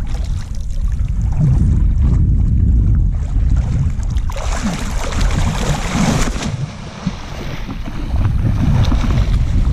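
Wind buffeting the microphone with a steady low rumble, and a louder rush of hissing noise for about two seconds midway.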